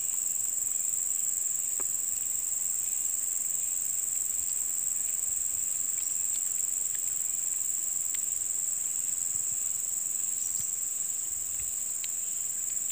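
Steady, high-pitched drone of insects that holds unbroken throughout, with a few faint clicks scattered through it.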